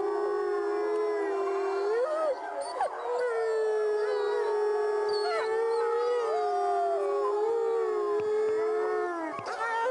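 Dog howling in long, drawn-out held notes that waver slightly in pitch, with short breaks about two and a half and nine and a half seconds in.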